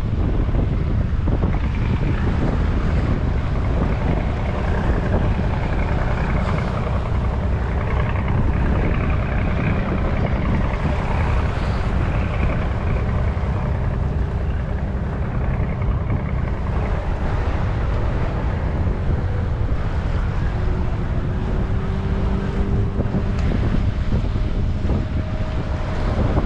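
Wind buffeting the microphone over the steady low rumble of a large ship under way and the rush of water along its hull. In the second half, faint thin engine tones rise a little in pitch and fade.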